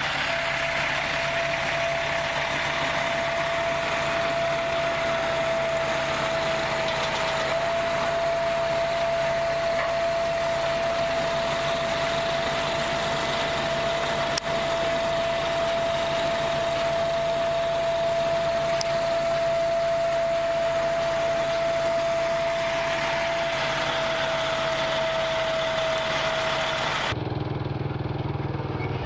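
Vehicle engine running at a steady speed: a constant whine over an even hiss. Near the end it cuts abruptly to a lower rumble.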